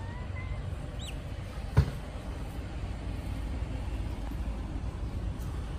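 Steady low outdoor rumble, with a few faint high chirping whistles in the first second and one sharp click a little under two seconds in.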